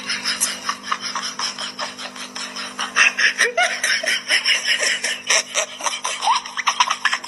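A person snickering and giggling under their breath in quick breathy bursts, growing louder about three seconds in, over a steady low hum.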